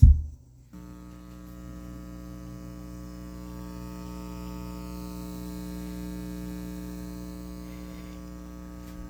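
A thump as self-amplified studio monitors power on, then a steady mains hum from the speakers, several even tones stacked over one another: ground-loop hum.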